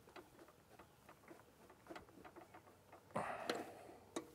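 Socket wrench on the lawn mower's blade bolt, clicking faintly and unevenly as the bolt is loosened, with a louder, noisier sound about three seconds in.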